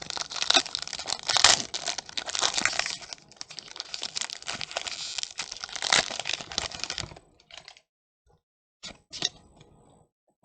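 Foil booster pack wrapper crinkling and tearing as the pack is opened, with dense crackling for about seven seconds, then a few short clicks near the end.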